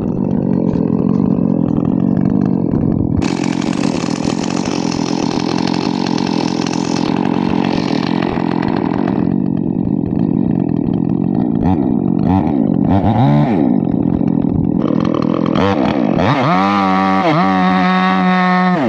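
Chainsaw engine running continuously, then revved up and down several times in the second half, its pitch rising and falling with each rev.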